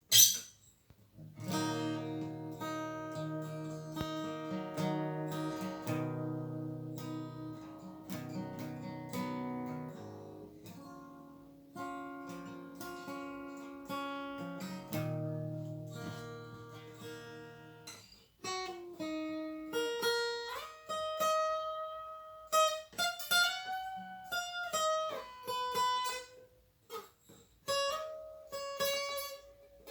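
Guitar being played solo: a sharp click at the very start, then ringing chords with bass notes for about the first half. After that it turns to single-note pentatonic lines with bent notes.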